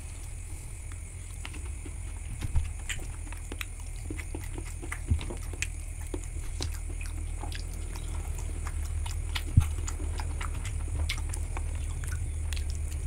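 Close-miked chewing of grilled pork satay: wet mouth clicks and smacks scattered irregularly over a steady low hum, with one sharper click about two-thirds of the way through.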